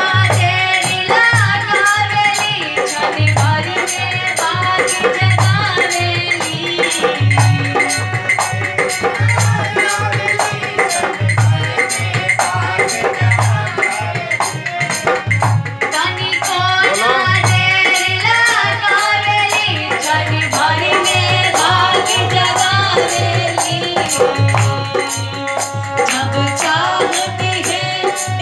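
A woman singing a Bhojpuri song into a microphone over music with a steady drum beat and rattling percussion; partway through she stops singing while the music plays on, then sings again near the end.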